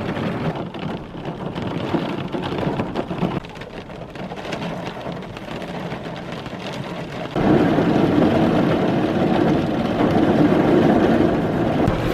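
Rain falling hard during a thunderstorm. About seven seconds in, the sound jumps suddenly louder and stays there.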